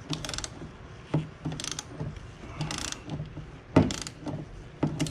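Ratchet wrench clicking in about five short bursts as it is swung back and forth on a stiff exhaust manifold bolt that has broken loose but is still hard to turn.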